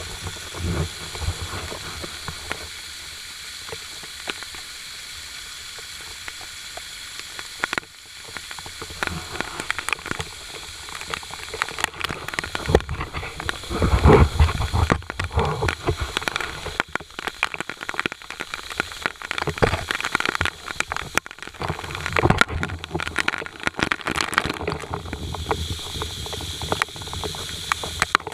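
Rushing water of a waterfall, a steady hiss at first, then splashing and clattering with irregular low rumbling gusts from about eight seconds in.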